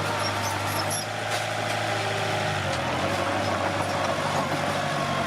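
Komatsu D21P bulldozer's diesel engine running steadily. Its note drops slightly about two and a half seconds in.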